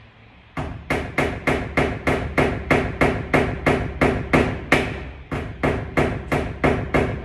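A hammer drives a nail into a wooden door with quick, even blows, a little over three a second. The blows pause briefly about five seconds in.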